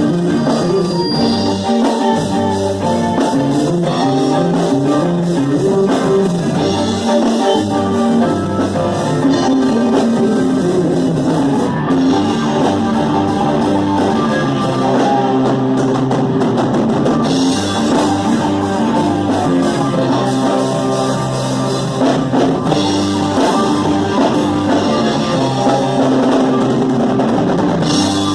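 Rock band playing live: drum kit and guitar over a low bass line, loud and steady throughout.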